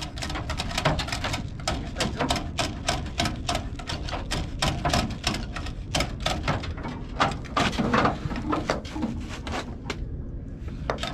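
Wiring harness being dragged through a car's body: a rapid, irregular run of clicks and scrapes as the taped bundle catches and slides against the sheet metal, with a brief pause near the end.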